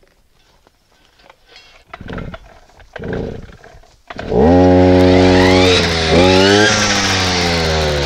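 Small petrol engine of a brush-cutter-style wheat harvester being pull-started: two rough pulls on the recoil starter, then it catches about four seconds in and runs fast. The revs dip and then rise again a little after six seconds before settling.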